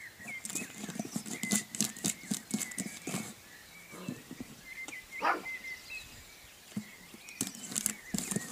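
Golden retriever puppy's claws scratching and scrabbling at a wooden board on paving: two bursts of quick sharp scrapes and taps, the first in the opening three seconds and the second near the end.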